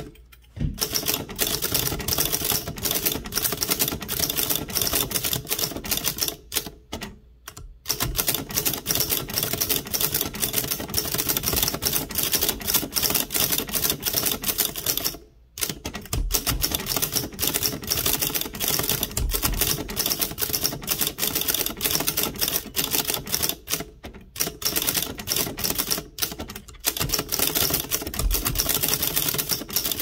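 Torpedo 18B manual typewriter typed fast with its carriage off, a rapid metal clatter of typebars, broken by a few short pauses. With no platen or paper behind it, each type slug smacks straight into the metal type guide.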